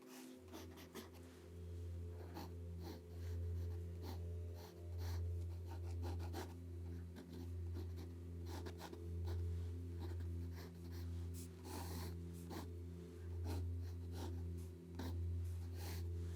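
Drawing strokes scratching and tapping across paper, many short strokes in quick succession. Under them runs a louder low hum that swells and fades about every second and a half.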